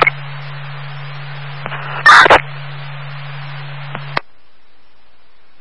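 Two-way radio scanner feed holding an open channel: a steady low hum under static hiss, broken about two seconds in by a short loud crackle. Just after four seconds the transmission cuts off with a click, leaving faint hiss.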